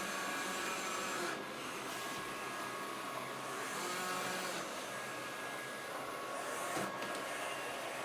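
Philips robot vacuum cleaner running: a steady whir of its motor and brushes with a faint high hum, swelling slightly now and then.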